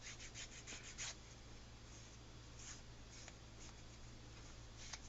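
Faint scratchy strokes of a nail file on the edges of cut leather, smoothing off the burrs: a quick run of strokes in the first second, then a few scattered ones.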